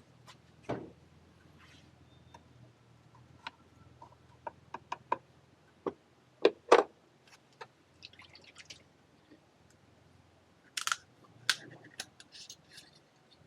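Irregular sharp clicks and light knocks of objects being handled, the loudest pair about six and a half seconds in, with a short crackly rustle a little later.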